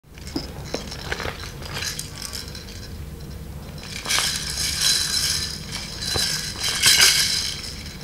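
A bag of plastic baby rattles shaken, the clear plastic bag crinkling and the rattles clattering against one another, starting about halfway through. Before that there are only a few light clicks.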